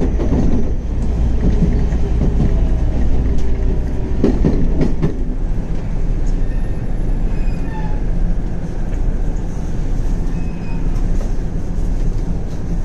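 JR Tokaido Line rapid electric train running, a steady low rumble of wheels and traction equipment as it nears Nagoya station.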